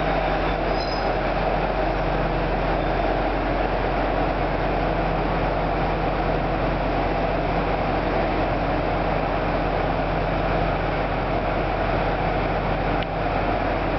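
KiHa 200 diesel railcar standing with its engine idling: a steady, unchanging diesel hum.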